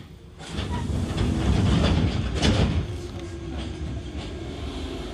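Enshu Railway electric train running on the line: a loud rush of rail and running noise comes in about half a second in, is strongest for about two seconds, then eases into steadier running.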